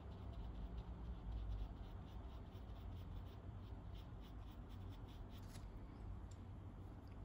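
Faint scratching of a fine paintbrush's bristles on rough cold-press watercolor paper, a quick run of small strokes, over a low steady hum.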